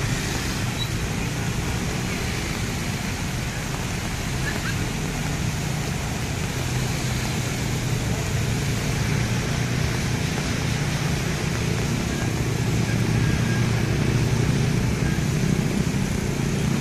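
Steady traffic and rain noise on a flooded street: car and motorcycle engines running through standing water under a hiss of heavy rain, with a low engine hum growing louder in the second half.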